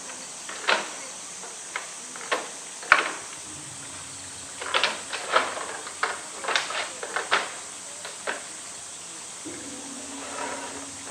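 Hollow bamboo tubes knocking and clattering on wet concrete as a polar bear paws and noses at them: a string of sharp, irregular knocks, the loudest about three seconds in and a quick run of them in the middle.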